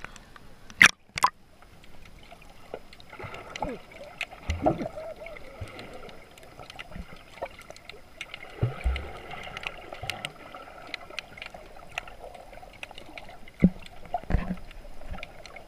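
Seawater sloshing and bubbling against a camera held at and just below the surface, muffled, with scattered small clicks and low thuds. Two sharp knocks about a second in are the loudest sounds.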